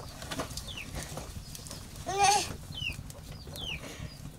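Chickens peeping: short, high, falling chirps repeated roughly every half second, with one louder short call about two seconds in.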